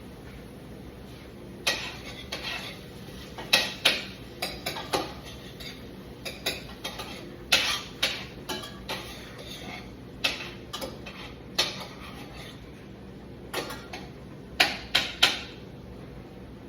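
Kitchen utensils and cookware clattering: irregular sharp clinks and knocks of metal against pans and dishes, with a quick cluster of three loud ones near the end.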